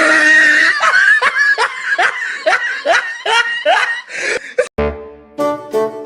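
A person laughing hard in a quick run of short, rising 'ha' sounds, about three a second. The laughter stops near the end and instrumental music begins.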